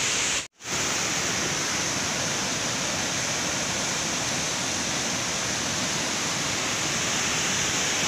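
Waterfall-fed stream rushing as white water over rocks, a steady even rush of water. The sound cuts out for a moment about half a second in.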